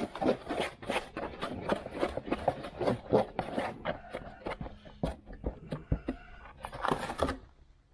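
Plastic spreader mixing Bondo body filler on a sheet of cardboard: a quick, irregular run of scraping and smacking strokes that stops near the end.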